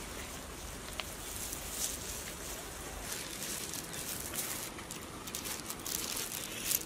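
Open-air ambience with scattered soft rustling and handling noises.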